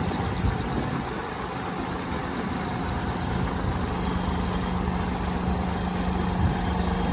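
Heavy diesel dump truck engine running steadily at idle while its tipper body is raised.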